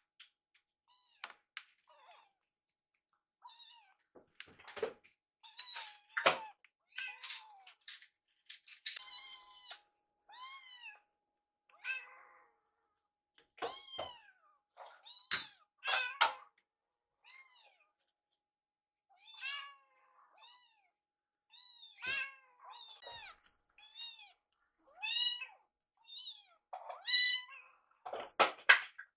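Kittens mewing over and over in short, high-pitched calls that rise and fall in pitch, begging for food.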